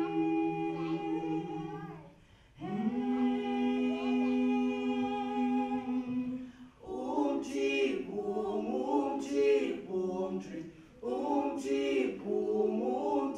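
A small group of voices singing a cappella: two long held, hummed notes, then from about seven seconds in a quicker, rhythmic passage of short sung syllables.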